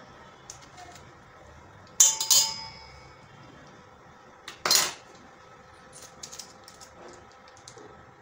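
Measuring spoons knocking against a stainless steel mixing bowl: a sharp clink with the bowl ringing about two seconds in, a second short knock near five seconds, then a few light taps.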